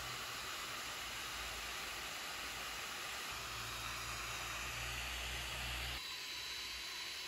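Steady airy hiss of a homemade hot air gun's 24 V blower fan pushing air through the heated soldering-iron barrel, with a low hum under it for a couple of seconds. Near the end the sound changes and a thin high whine joins the hiss.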